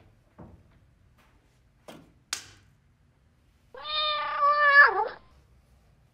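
A single long cat meow about two-thirds of the way in, lasting about a second and a half, holding its pitch and then dropping at the end. A few light knocks come before it.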